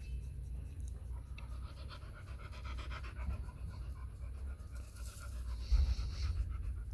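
A dog panting over a steady low rumble.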